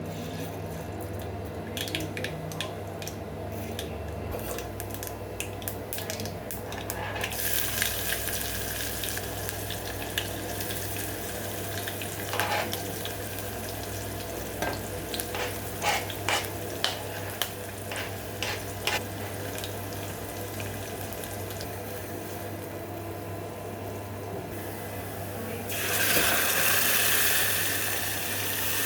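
Kitchen cooking sounds: utensils clicking and clinking over a steady low hum, with a hiss that comes in about a quarter of the way through and grows to a louder rush near the end.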